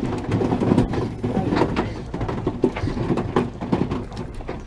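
A spinning reel being cranked and the rod worked while jigging, with irregular knocks, clicks and rattles of handling close to the microphone.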